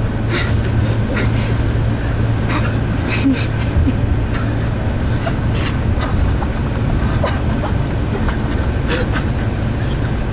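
Steady low rumble of road and engine noise inside a bus cruising on the highway, with a few short, sharp rustles or clicks over it.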